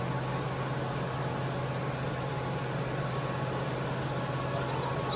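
WAP-7 electric locomotive running with a steady low hum as it pulls slowly out, hauling its train.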